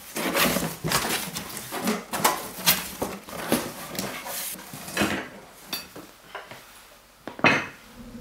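Cardboard moving-box flaps being opened and handled: a run of irregular rustles and scrapes of cardboard, with a sharp thump a little after seven seconds in.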